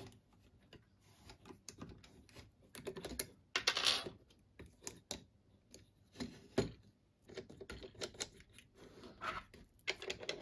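Small metal and wooden clicks and knocks from a plywood beadweaving loom being put together by hand: a threaded steel rod, nuts and wooden side panels tapping against each other. There is a short clatter about four seconds in and a single knock a couple of seconds later.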